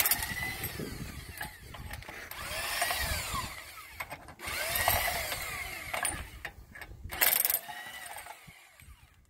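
Impact wrench running lug nuts on a truck wheel. There are short bursts near the start and about seven seconds in, and two longer whirring runs in the middle that rise and fall in pitch.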